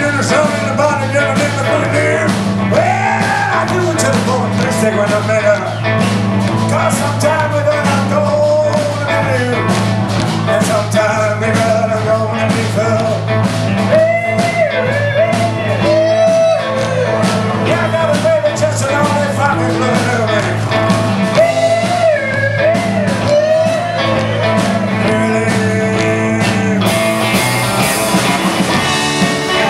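Live rockabilly band playing, with electric guitar, electric bass guitar and drums behind a sung vocal.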